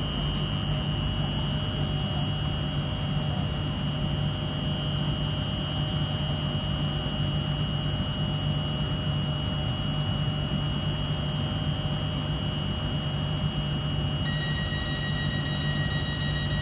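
Class 321 electric multiple unit standing at the platform, its onboard electrical equipment giving a steady hum with high whines held at a fixed pitch. A further high tone joins near the end.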